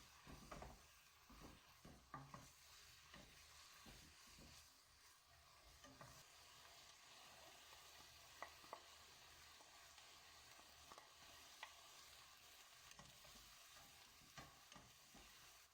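Food sizzling faintly in a frying pan, with scattered light clicks of a utensil stirring against the pan.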